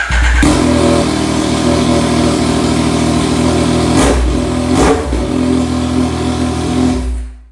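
2021 Yamaha MT-09 SP's 890 cc inline three-cylinder engine running loud on open header pipes with no muffler fitted. The revs shift briefly about four to five seconds in, and the sound cuts off about seven seconds in.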